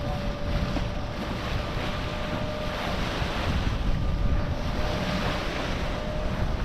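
Water rushing past the hull of a sailboat under way and wind buffeting the microphone, surging now and then, with a faint steady hum underneath.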